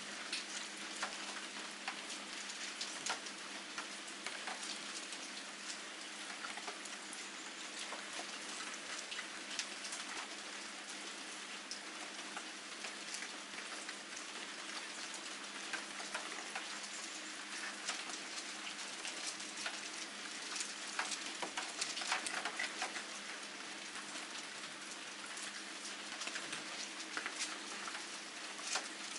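Steady rain falling and pattering on surfaces, with many scattered sharp drop ticks.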